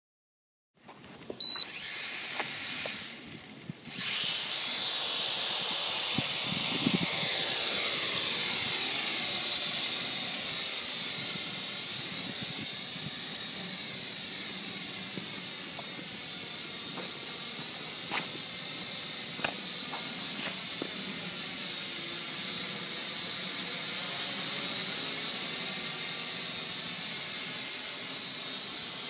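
Blade mQx quadcopter's electric motors and propellers whining steadily in flight, a high-pitched buzz whose tone shifts as the craft moves about. Before it settles into the steady whine there is a sharp click and a brief dip, about a second and a half in.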